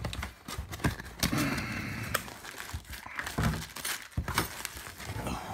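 A cardboard retail box being opened by hand: the flaps are pulled open with crinkling, rustling packaging and scattered light knocks and clicks.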